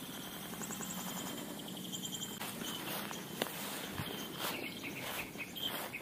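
Insects chirping steadily in the background. From a little over two seconds in, footsteps swish and rustle through long grass.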